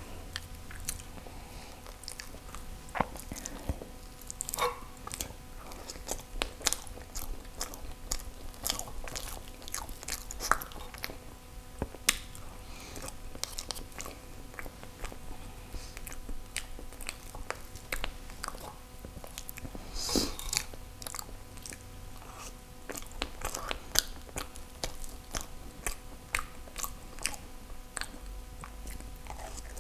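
Close-miked mukbang eating sounds: a person chewing mouthfuls of soft durian crepe cake, with many sharp little clicks and smacks scattered throughout.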